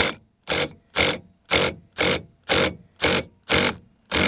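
Hand ratchet being worked in steady back-and-forth strokes, turning the forcing screw of a puller, with about two ratcheting bursts a second.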